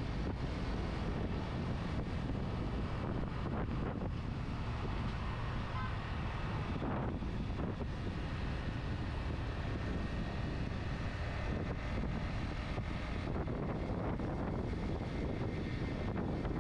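Steady wind noise on the microphone of a motorcycle riding at road speed, with the motorcycle running underneath it.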